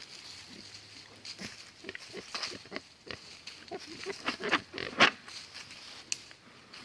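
Pigs grunting and snuffling around a feed bucket, a run of short irregular noises, with one louder sharp one about five seconds in.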